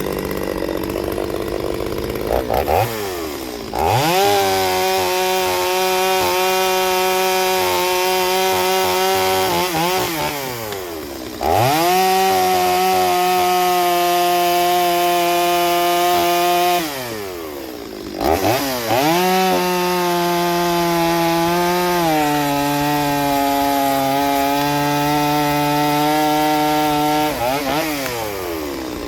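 Stihl 023C two-stroke chainsaw cutting wood: three full-throttle cuts, each lasting several seconds, with the engine revving up, holding a steady high note through the cut and dropping back to idle in between. The pitch sags a little under load partway through the last cut.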